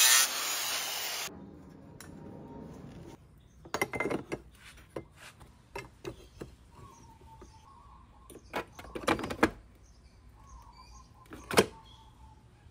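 An angle grinder cuts a thin metal bracket, then stops about a second in. A series of scattered short knocks and clanks follows, the sharpest one near the end.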